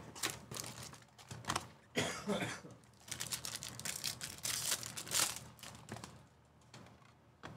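Clear plastic wrapper on a trading-card box being torn open and crinkled by hand, with quick clicking and rustling of the packaging; it dies away about six seconds in.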